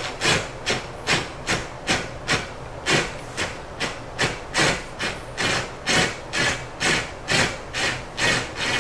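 Cordless drill with a T-bit turning a Samsung dishwasher's rear leveling-leg adjustment screw, giving an even rhythmic rasping scrape about two to three times a second as the back leg is driven down to the floor.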